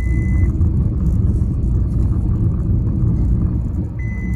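Low, steady road and engine rumble inside a moving car's cabin. A car warning chime sounds in short, high beeps about once a second at the start and again near the end.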